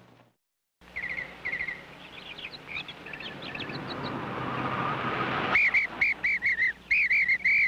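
A car's running noise swells as it approaches, then cuts off abruptly about five and a half seconds in. Over it runs a string of high, rapid, warbling chirps, loudest near the end.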